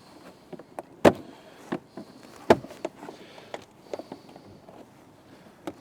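Irregular sharp clicks and knocks of plastic interior trim panels being pried loose and handled, the loudest about a second in and again about two and a half seconds in.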